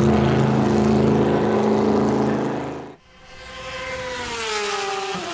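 Cadillac V-Series.R GTP race car's 5.5-litre naturally aspirated V8 running loud and steady, having just fired up. About three seconds in it cuts off abruptly, and a quieter race-car note takes over, falling in pitch and then holding steady.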